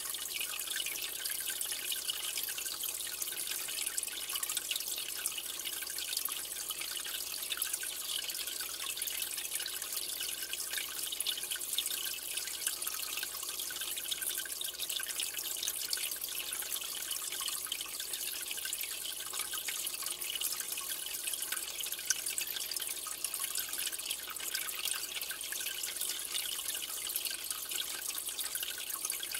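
Water in an aquarium trickling and splashing steadily, a dense patter of small drops with no change throughout.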